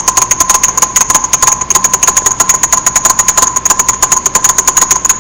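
Rapid, even tapping, about ten clicks a second, over a steady high-pitched whine. The source of the tapping is not identified.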